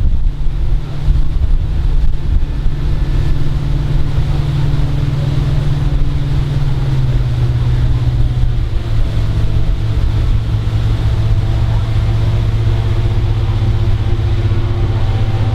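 Tour boat's engine running at speed, a steady low drone with wind and water rushing past; the engine note drops slightly about seven seconds in.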